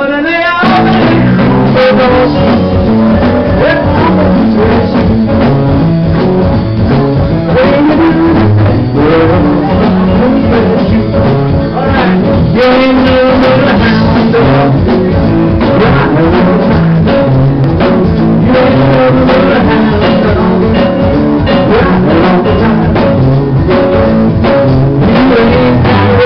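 Live country band playing: electric guitar and drum kit, with a man singing into a microphone, loud and steady.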